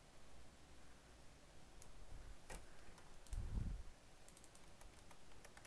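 Scattered clicks of a computer mouse and keyboard, with a quick run of clicks in the second half. A short low thump about halfway through is the loudest sound.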